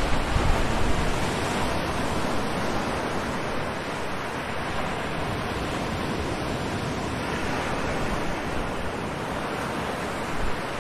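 Steady, even rushing noise, like moving air, with no distinct events; it is a little louder in the first second.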